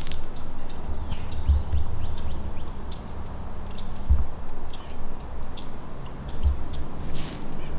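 A steady low rumble with a few dull thumps, under faint, scattered chirps of small birds.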